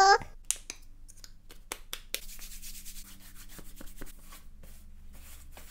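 Hands rubbing lotion over the face, heard as a faint, dry rubbing hiss that starts about two seconds in and lasts about two seconds. Before it come a scatter of small clicks and taps.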